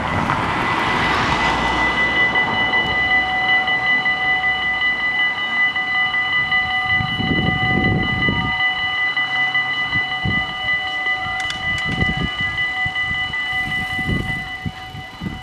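Dutch level-crossing warning bells ringing steadily as the automatic half-barrier crossing activates, starting about a second or two in. A passing van's tyre and engine noise fades out at the start.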